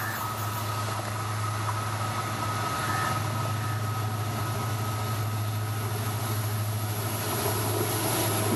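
EMD WDP4D diesel-electric locomotive's two-stroke V16 engine running as it approaches: a steady low drone with a thin high whine over it, growing louder as the locomotive nears and draws level near the end.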